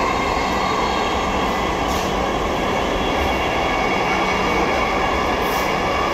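Dhaka Metro Rail (MRT Line 6) train heard from inside the carriage while running: a steady rumble and rush of the moving train, with faint steady high tones running through it.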